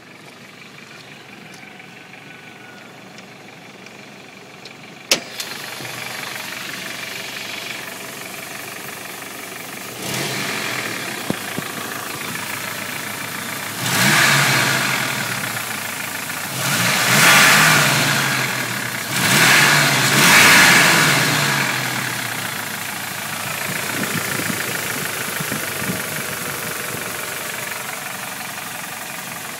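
Warm 1995 Toyota 3RZ 2.7-litre four-cylinder engine idling with a knocking that the owner takes for piston slap. It is revved about four times, around 10, 14, 17 and 20 seconds in, then drops back to idle. It gets louder after a sharp click about five seconds in.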